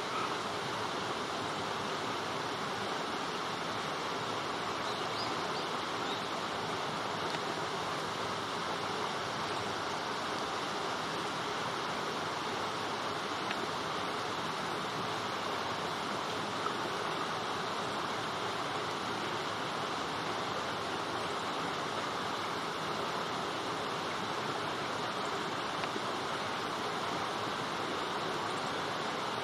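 Light rain falling on leafy vegetation: a steady, even hiss.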